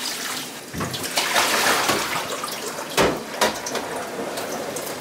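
Water running from a kitchen tap into a sink, with a few sharp knocks, the loudest about three seconds in.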